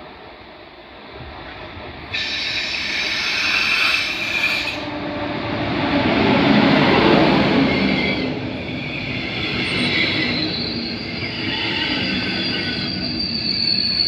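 DB regional express train of double-deck coaches hauled by a class 114 electric locomotive passing close at speed. A sudden loud hiss with shrill high tones starts about two seconds in. The rolling rumble of the coaches is loudest around six to eight seconds, with a high steady whine from the wheels and rails coming back near the end.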